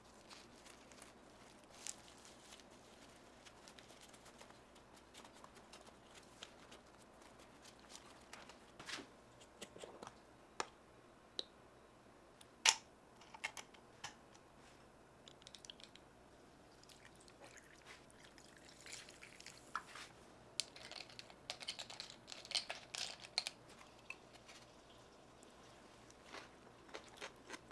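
Food preparation in a quiet kitchen: scattered light clicks and taps of utensils and ingredients being handled, with one sharper click about halfway through and a busier run of small taps later on.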